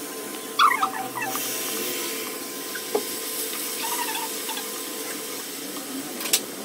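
Grated carrot and chopped tomato and green chilli tipped from a plate into a hot kadai of frying onions, with a brief squeaking scrape as they slide off. The vegetables then sizzle while a wooden spatula stirs and scrapes them, with a sharp knock of the spatula on the pan near the end.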